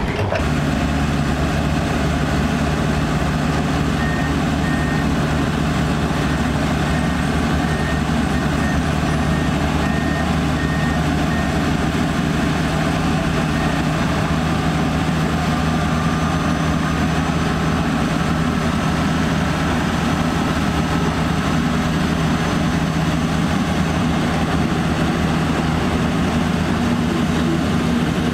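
Heavy dump truck's diesel engine running steadily. A reversing alarm beeps at an even pace from a few seconds in until shortly before the middle.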